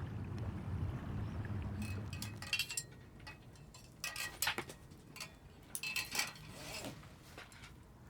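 Wind rumbling on the microphone, then from about two seconds in several short bursts of light clinks and rattles of small hard objects, with a brief ringing note.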